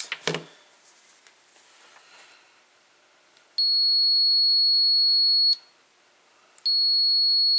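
Fieldpiece SC76 clamp meter's continuity beeper sounding a steady, high-pitched beep as its test leads are touched together, the sign of a closed circuit. The beep lasts about two seconds, stops, and starts again near the end.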